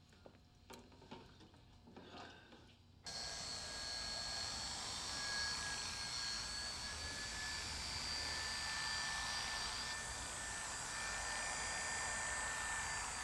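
Corded electric hair clippers running steadily during a haircut, a buzz with a thin high whine on top that starts abruptly about three seconds in, after a few faint knocks.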